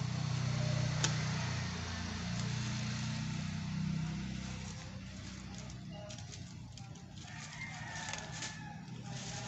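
Crinkling and rustling of a plastic bag being handled and pulled off a potted plant, over a low motor hum that fades out about halfway through. A faint rooster crow comes near the end.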